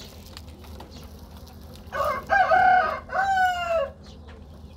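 A rooster crowing once, starting about two seconds in: a loud call of about two seconds that ends on a long falling note.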